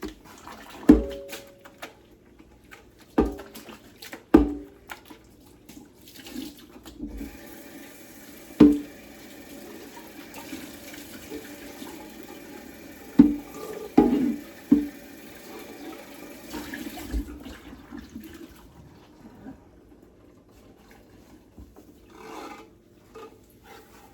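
Pots and pans knocking and clanking as cookware is handled, with a kitchen tap running for about ten seconds in the middle.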